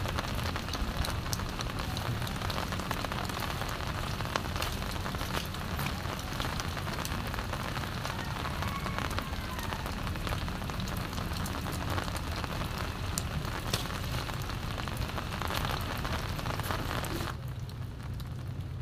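Steady rain falling, a dense hiss with many sharp drop impacts; the hiss thins out abruptly near the end.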